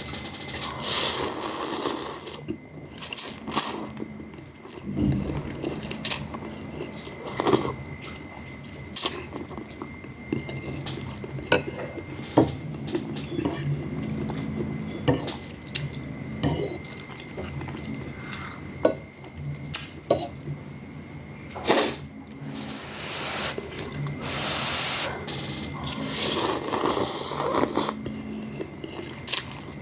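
Eating noodle soup: spoon and chopsticks clicking and knocking against a bowl again and again, between noisy stretches of slurping.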